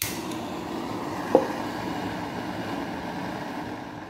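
Handheld butane blow torch lit with a sudden start, then burning with a steady hiss. A single sharp click comes about a second in.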